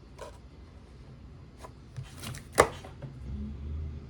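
Tarot card decks being handled: scattered light taps and clicks, with one sharp knock about two and a half seconds in.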